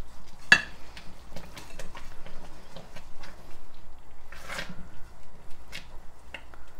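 Silicone spatula stirring thick milk-and-flour halwa in a large pan, scraping and knocking against the pan with a sharp knock about half a second in.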